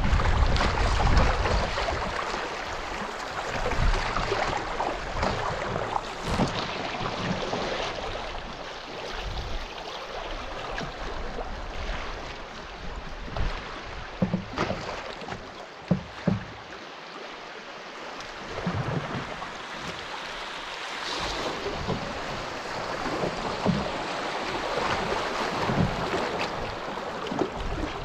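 River water rushing and splashing as a solo canoe runs a wave train, with occasional short low thumps and wind buffeting the microphone at the start.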